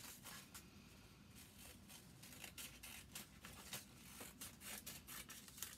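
Scissors snipping through paper: a quick run of faint, short snips, one after another.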